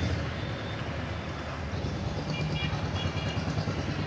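Road traffic: a steady low rumble of vehicle engines running, with a faint high tone briefly about two seconds in.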